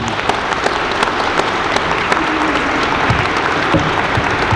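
Large audience applauding steadily at the end of a speech, many hands clapping together in a big hard-floored hall.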